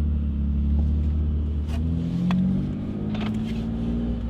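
Exhaust of a BMW F80 M3's twin-turbo inline-six, running through a VRSF single midpipe with the secondary cats and mid resonator removed, in sport mode. It gives a loud, deep, steady drone as the car drives.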